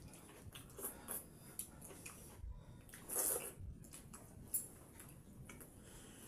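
Eating sounds: fingers mixing pakhala, rice soaked in water, in a steel bowl, with faint light clicks and small wet noises and one louder sound about three seconds in.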